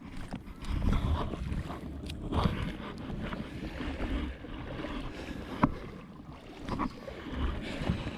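Water sloshing and splashing in uneven surges, with wind on the microphone and a few sharp knocks, the strongest about halfway through.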